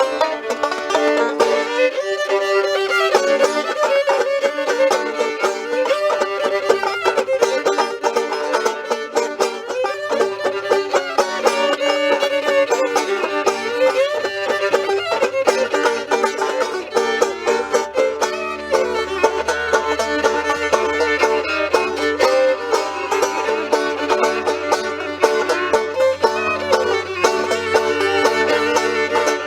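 Fiddle and banjo playing an instrumental tune together.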